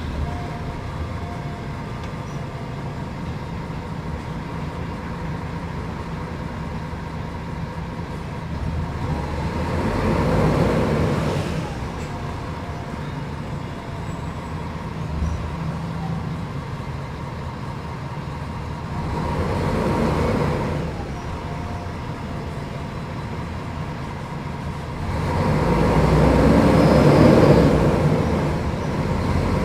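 Diesel engine of a Mercedes-Benz O500UDA articulated bus running steadily, its sound swelling and falling back three times, at about ten, twenty and twenty-six seconds in, as the engine works harder.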